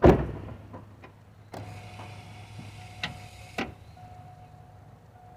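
A loud clunk, then a few sharp clicks and a faint tone that sounds on and off, with no engine cranking or running: the 2002 Chevy Avalanche's 5.3 V8 does not turn over when the key is tried.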